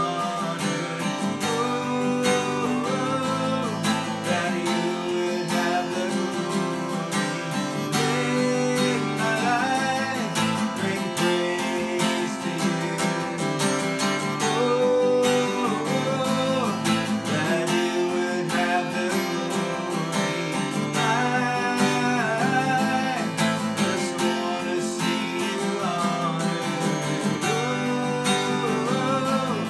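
Acoustic guitar strummed in a steady rhythm, with a man's voice singing along softly at times.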